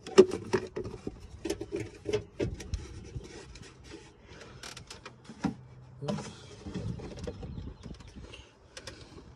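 Irregular sharp clicks, taps and knocks of a plastic motor-oil jug being handled by hand, the loudest knock right at the start.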